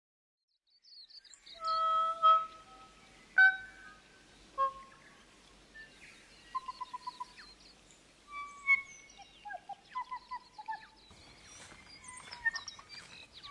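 Birdsong: after a second of silence, separate clear whistled notes, quick trills and chirps with pauses between phrases. Near the end come light rustling footfalls on a bush path.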